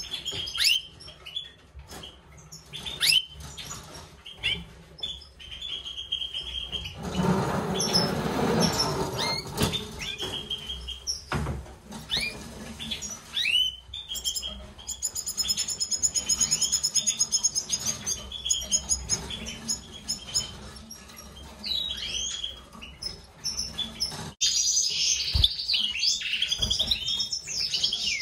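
European goldfinches chirping and twittering in a breeding cage, short bright calls and trilling song phrases, with a burst of rustling about seven seconds in and busier chirping near the end.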